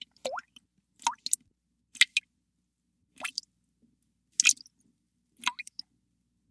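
Water dripping: single drops falling about once a second, several with a quick rising pitch.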